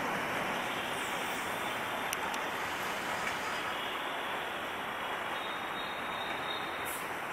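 Broad-gauge passenger coaches rolling away on the rails, a steady rumble of wheels on track that fades slightly as the train recedes.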